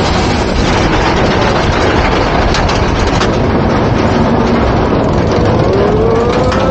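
Loud, steady rush of wind and track roar from the Nitro hypercoaster's train running at speed, heard from an open front seat. A single rising tone enters about five and a half seconds in.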